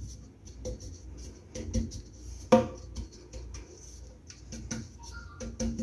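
Scattered light taps and knocks of a cake pan being tilted and shaken on a countertop to spread flour over its buttered base, with one louder knock about halfway through.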